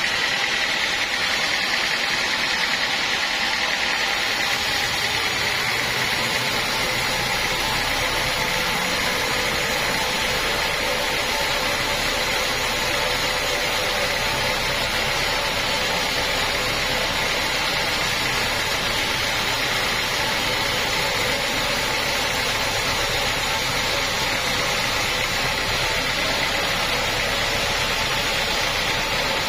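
Band sawmill cutting through a teak log: a steady high tone from the running blade and machine over a constant hiss of sawing. A lower rumble builds in over the first few seconds.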